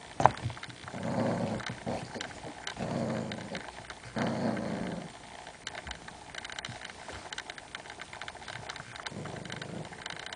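Small dogs growling in play while tugging at a blanket: rough, low growls of about a second each, three in the first five seconds and another near the end. A sharp click comes just at the start.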